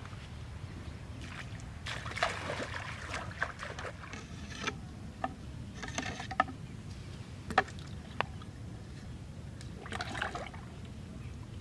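Water splashing and trickling in short bouts, about three times, with sharp knocks in between, over a steady low rumble.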